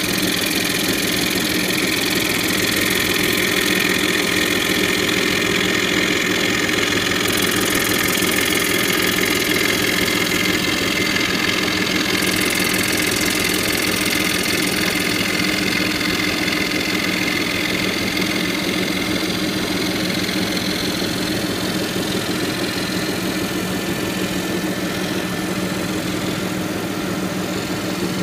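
YTJ 1200C flat jig saw machine running steadily, its vertical blade reciprocating rapidly as it cuts a wooden die board along the marked outline.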